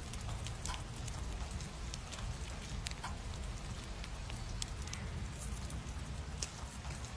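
Light, scattered clicks and taps from hands working with paper journaling materials, over a steady low hum.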